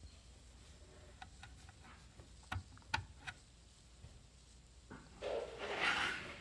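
Faint handling sounds at a 3D printer's power supply and switch: a few light clicks, then three sharper clicks about two and a half to three and a half seconds in, and a brief rustle near the end, over a faint steady low hum.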